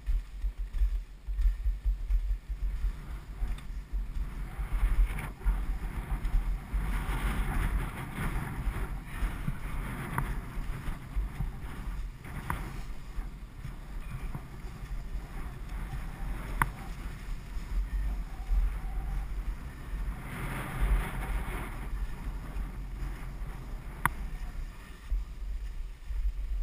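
Wind buffeting the microphone while skiing, under the hiss of skis sliding over snow, which swells twice as the skis scrape through turns. A few sharp clicks stand out.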